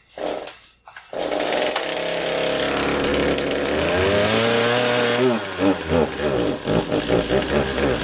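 Older Stihl MS-series chainsaw's two-stroke engine running just after a fuel line replacement. Its pitch rises as it revs up, drops back about five seconds in, then settles into a pulsing beat of about three pulses a second.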